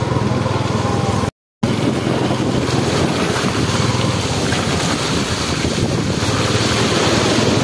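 Small motorbike engine running steadily under riding, with wind noise on the microphone. The sound cuts out briefly about a second and a half in.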